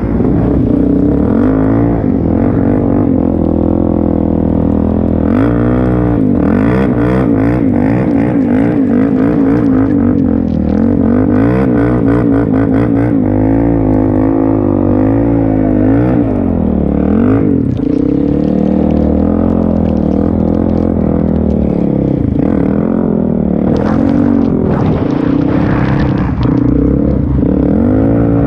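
Kawasaki KFX400 quad's single-cylinder four-stroke engine, breathing through a full HMF exhaust, revved up and down again and again. It is loud throughout, the pitch swinging with each throttle stab.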